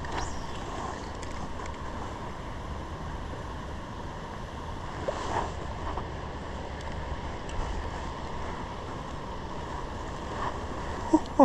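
Steady rush of flowing river water, with wind buffeting the microphone as a low rumble.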